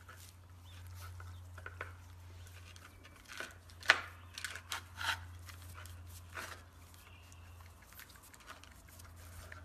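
Puppies scuffling at play: scattered soft clicks and scrapes, the sharpest about four seconds in, over a steady low hum.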